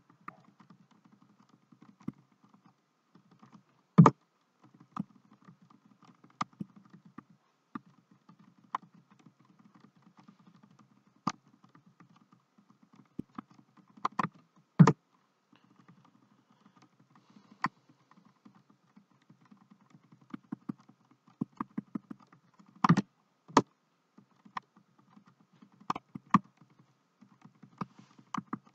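Computer keyboard keys tapped at irregular intervals, single clicks and short runs, with a few much louder strikes, over a faint steady hum.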